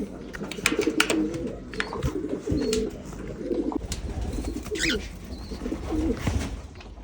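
Pigeons cooing repeatedly in low, warbling calls, with several sharp clicks or knocks in the first two seconds.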